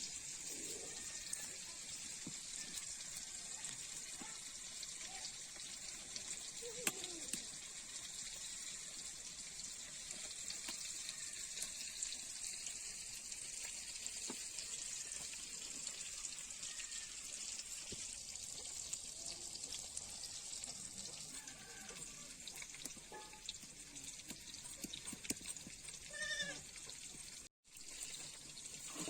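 Steady sizzle of curry frying in a pan, with a short animal bleat near the end.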